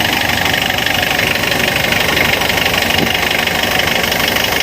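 Mitsubishi L300 FB diesel engine idling steadily with an even, fast clatter. It is running after repair work on the injection pump, injector nozzles and timing belt, and the hard starting is cured.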